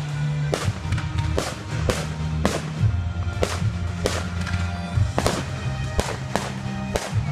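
Aerial fireworks bursting, a quick irregular run of sharp bangs, over music with held bass notes.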